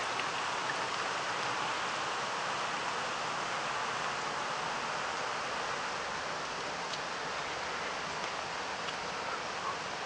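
Steady rushing of water falling over a small river waterfall, a continuous hiss that grows a little quieter toward the end.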